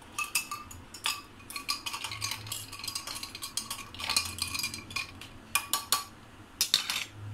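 A metal spoon stirring ice cubes in a tall glass of juice, clinking against the glass and the ice in a quick, irregular series of ringing clinks.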